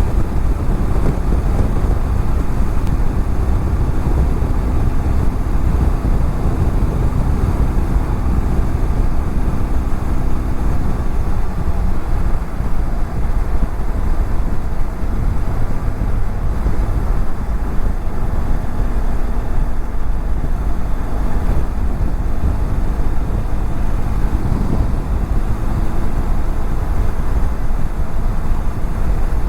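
BMW F700GS motorcycle's 798 cc parallel-twin engine running steadily at highway cruising speed, under a heavy, steady rush of wind and road noise on the helmet-mounted microphone.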